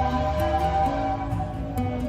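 Background music: a gentle new-age style piece with plucked guitar-like notes held and changing in steps.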